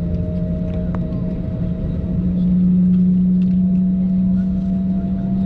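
Steady low hum and rumble in the cabin of an Airbus A321neo during pushback, with a deep drone that steps up slightly in pitch and grows louder about two seconds in.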